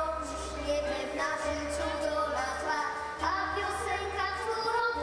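Two girls singing a duet into microphones, amplified, over instrumental accompaniment, with held melodic notes.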